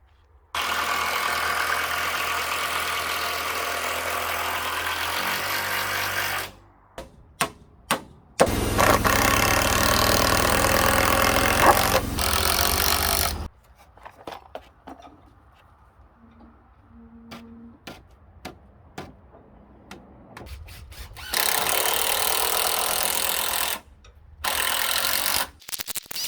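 A power tool running in several loud bursts of a few seconds each, with knocks and clicks in the pauses between them.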